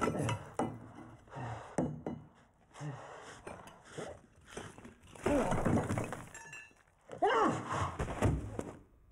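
Bricks being knocked out of an old brick wall: repeated thuds and crumbling, breaking sounds. Two longer, louder stretches of vocal sound come about five and seven seconds in.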